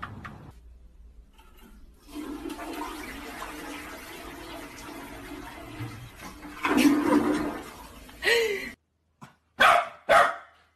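A rush of water, like a toilet flushing, runs for several seconds and swells loudest about two thirds of the way through, then cuts off suddenly. Two short dog barks follow near the end.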